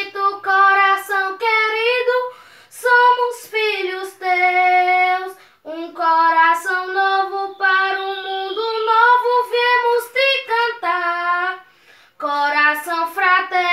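A single high voice sings a verse of a Portuguese hymn to the Sacred Heart of Jesus, unaccompanied, in long held phrases with two short breaths between them.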